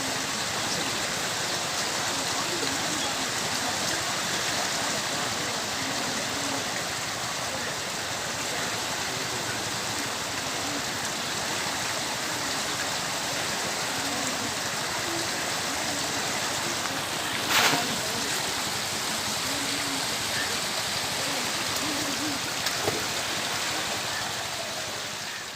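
Floodwater of a swollen river rushing in a steady, even wash of noise, with faint voices underneath. A single sharp knock about two-thirds of the way through is the loudest moment, and the sound fades out at the end.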